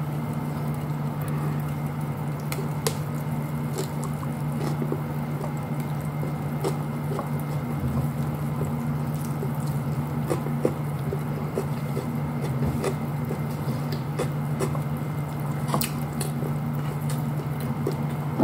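Close-up eating sounds: scattered wet clicks and squishes of chewing rice and corned beef eaten by hand, over a steady low hum.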